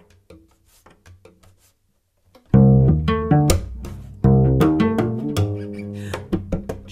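Solo cello played with extended techniques: soft scattered finger taps and clicks on the instrument, then about two and a half seconds in a sudden loud plucked low chord that rings and dies away, with a second loud plucked attack a little over a second and a half later.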